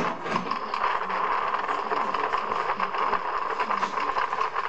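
Small moped engine running steadily at road speed, a high, buzzing drone.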